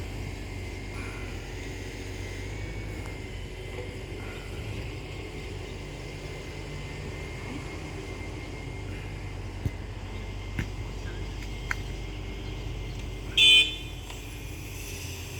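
Steady outdoor background hum with a few faint knocks, broken about thirteen seconds in by a single short, loud toot, the loudest sound here.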